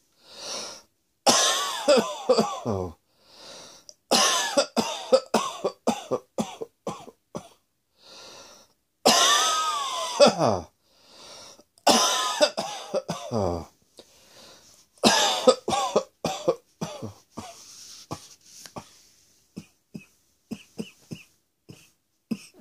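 A person coughing in repeated fits: about five runs of rapid, voiced coughs, each a second or two long and trailing off with a falling pitch, with drawn-in breaths between them, then a few smaller scattered coughs near the end.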